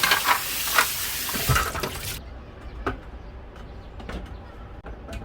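Water running from a tap into a sink, shut off abruptly about two seconds in, followed by a few light knocks and clinks.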